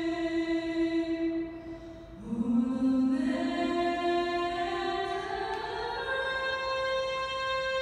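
Music of sustained choir-like chords: a long held note, a brief dip about two seconds in, then a slow rise in pitch over the next few seconds.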